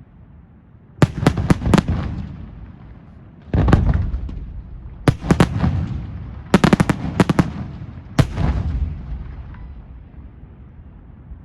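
Fireworks display shells bursting in quick clusters of sharp bangs, with a heavier boom about three and a half seconds in, each burst trailing off in a long rumbling echo that dies away near the end.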